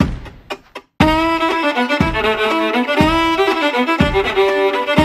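A thud, then about a second in intro music starts: a fiddle melody over a beat of one low thump a second.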